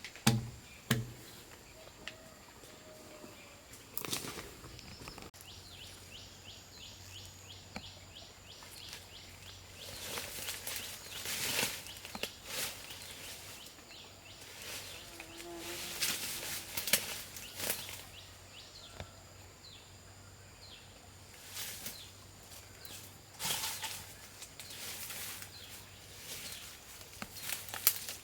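Intermittent rustling with scattered light knocks and footsteps, several bursts a few seconds apart.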